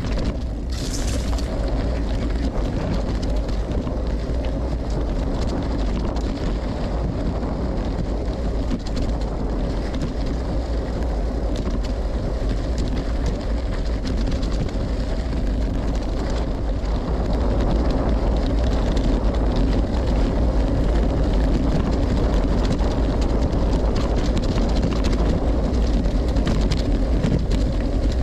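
Wind buffeting the microphone and a gravel bike's Maxxis Rambler tyres rolling over a dirt trail on a descent, with scattered clicks and rattles from stones and the bike. There is a short hiss about a second in, and the noise gets a little louder after the halfway point.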